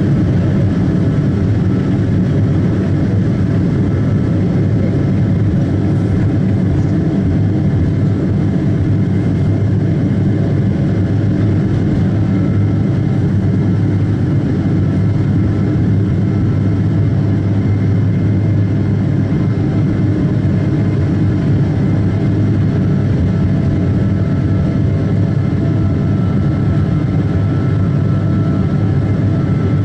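Boeing 777-223ER cabin noise as the airliner rolls along the ground: its Rolls-Royce Trent 892 jet engines run at a steady, even level under a heavy low rumble, with faint whining tones above. The sound neither rises nor falls.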